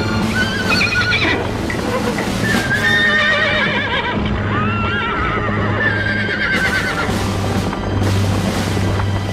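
Horses whinnying, several overlapping quavering calls one after another through the first two thirds, over music with a steady low drone.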